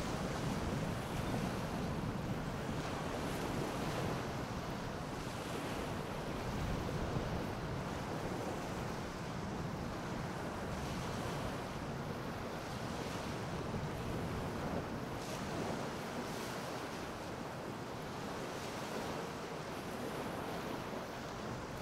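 Gulf of Mexico surf: small waves rolling and washing ashore in a steady hiss, with wind buffeting the microphone in a low rumble.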